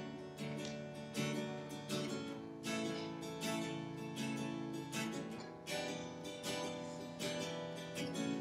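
Instrumental break with no singing: acoustic guitar strumming chords, one strum about every 0.8 s, each left to ring.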